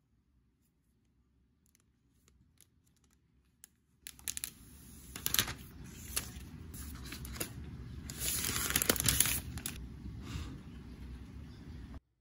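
Protective wrap being peeled off a new MacBook Air's lid, a crinkling, tearing sound that starts about four seconds in, is loudest in the second half and cuts off abruptly near the end.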